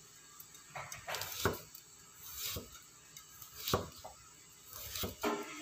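Cleaver chopping thin slices of yellow pumpkin onto a wooden chopping block: sharp knocks, irregular, about one a second.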